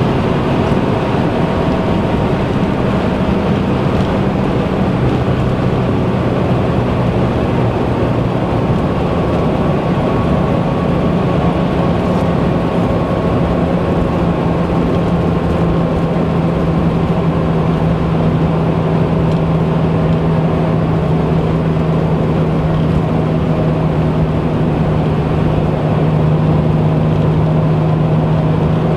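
Porsche cruising on a motorway, heard from inside the cabin: a steady engine drone under tyre and road noise, the engine note shifting slightly twice in the first ten seconds or so.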